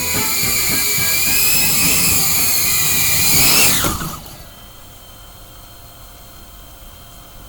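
Small FPV cinewhoop drone's brushless motors whining at a high pitch, then spinning down with a steep falling whine about four seconds in as the motors stop; only a faint steady hiss remains after.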